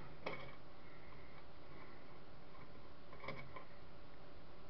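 A few faint clicks and taps of small metal parts and tools being handled while a CCTV camera housing is taken apart: one about a quarter second in and a short cluster a little past three seconds, over a steady hiss.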